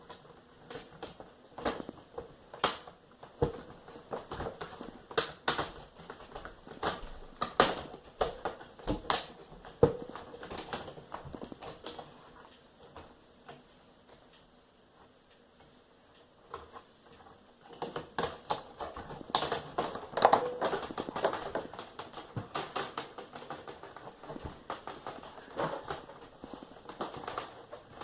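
Plastic screen bezel of an HP 15z-ba000 laptop being pressed on by hand, its clips snapping into place: a string of irregular small plastic clicks and snaps, with a few quieter seconds about halfway through before the clicking picks up again.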